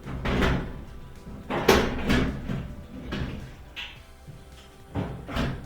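Clunks and clatter of a dryer's control console panel being handled and fitted back into place: a run of separate knocks, the loudest about a second and a half in.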